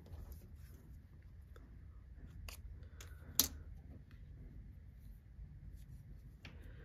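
Faint clicks and light rustles of hands handling a plastic pin wheel, sewing pins and small crocheted pieces on a tabletop, with one sharper click about three and a half seconds in.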